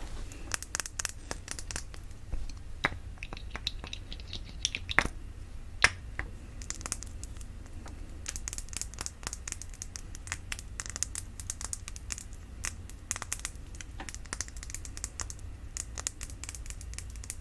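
Fingernails tapping and scratching on a glass perfume bottle: a fast run of crisp clicks and scratches, with a few louder taps in the first six seconds that ring briefly.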